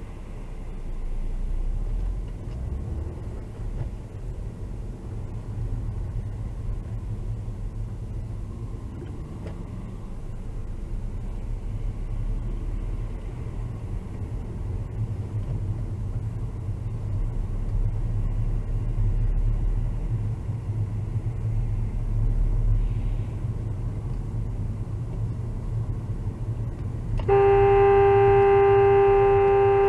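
Steady low rumble of a car's engine and road noise, heard from inside the car. Near the end a car horn sounds one long, loud, steady blast of about three seconds.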